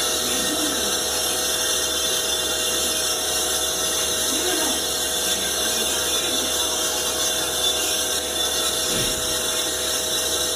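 Capstan lathe running, a steady machine hum with a high whine that holds its pitch.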